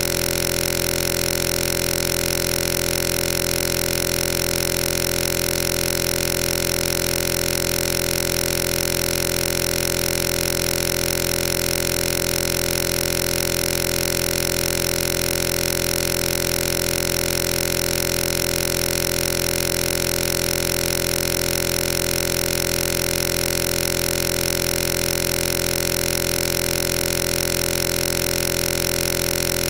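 A loud, steady buzzing drone that does not change at all in pitch or level.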